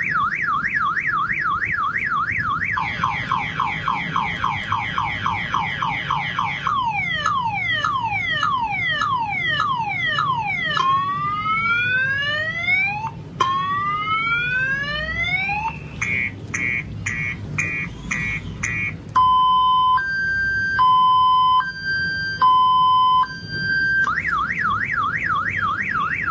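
Car-alarm siren cycle running through its tones in turn: a fast warble, slow rising whoops, quick falling chirps, long rising sweeps, rapid beeping, a two-tone high-low alternation, and back to the fast warble near the end.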